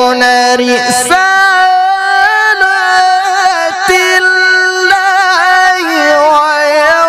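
A male qari's voice reciting the Quran in the melodic mujawwad style, drawing out long held notes with winding vocal ornaments. There is a short break about a second in, after which the line resumes higher.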